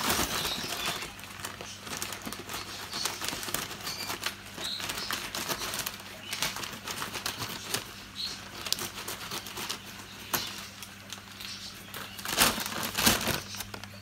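Large woven-plastic bird-seed sack with a paper inner liner being handled and opened, rustling and crinkling in irregular crackles, loudest near the end.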